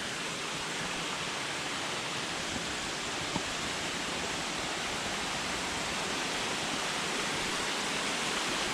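Steady rush of a mountain stream's running water, growing a little louder toward the end.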